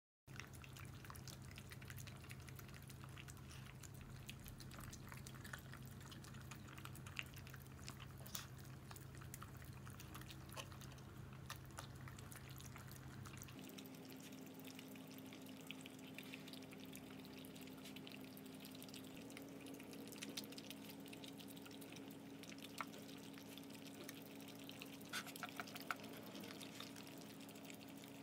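Two small dogs eating soft salmon food from bowls: faint wet licking, lapping and chewing, with many small clicks of tongue and teeth. A steady low hum sits underneath and shifts higher about halfway through.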